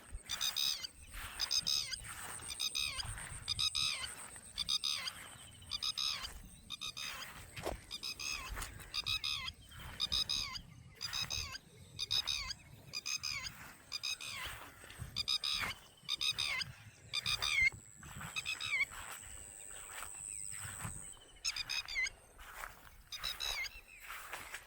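Repeated animal calls, short and pitched, coming about one every 0.7 seconds without a break, over a steady high-pitched whine.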